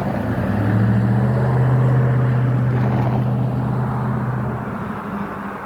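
A motor vehicle driving past close by: a steady engine hum with tyre and road noise that grows louder over the first two seconds and fades after about four and a half.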